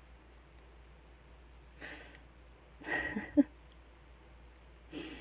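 A woman breathing close to the microphone: three short breaths or sniffs about a second apart, the second ending in a brief catch of the voice.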